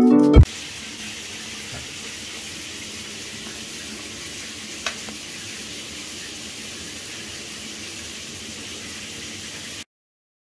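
A steady hiss, with a single faint click about five seconds in, cutting off abruptly to silence near the end. A piece of background music ends sharply just as it begins.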